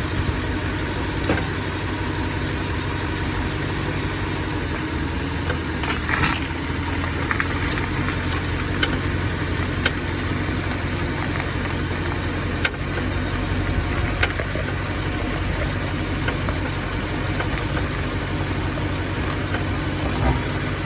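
BMW F16's V8 engine running steadily at low revs, with a brief creak about six seconds in and a few faint clicks. This is the front-right brake creak that the owner traced to the Brembo GT kit's pads shifting against worn rotors with a lip at the edge.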